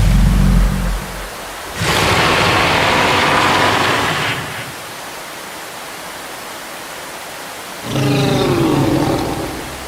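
Made-up dinosaur calls over the steady rush of a waterfall. A deep low rumble comes at the start, then a long hissing roar about two seconds in, and near the end a pitched call that wavers up and down.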